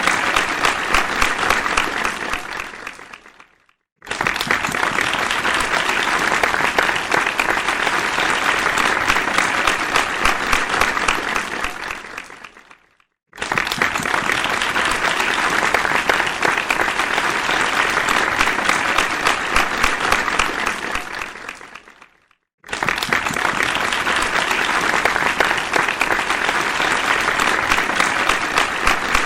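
Audience applause, a dense steady clatter of many hands clapping. It dies away and breaks off briefly three times, about 4, 13 and 22 seconds in, and each time starts again at full strength.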